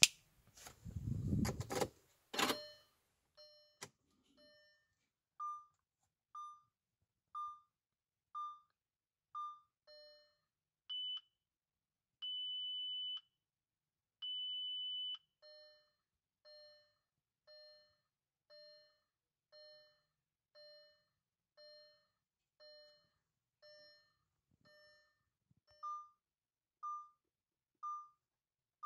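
Car instrument-cluster warning chimes: short pitched tones that fade, repeating about once a second, with a change of pitch partway and three longer steady beeps in the middle. A rustle and a sharp knock come near the start.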